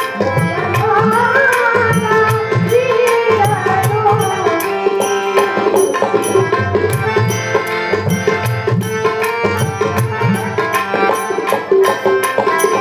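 Varkari bhajan music: hand-drum strokes and sharp, evenly spaced cymbal-like strikes keep a steady beat under held instrument tones, with a melody line rising and falling in the first few seconds.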